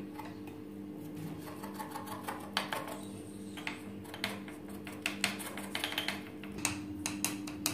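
Scattered light clicks, taps and scrapes of a kitchen knife and butter paper on a stone counter as a rolled disc of cashew dough is pressed into a square, with the paper rustling as it is lifted and folded. A steady low hum runs underneath.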